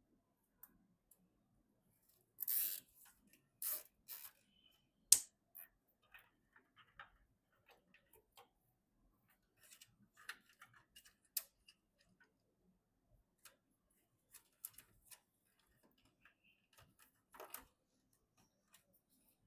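Hands handling computer parts during assembly: a few brief rustles, one sharp click about five seconds in, then scattered small ticks and clicks of plastic and metal.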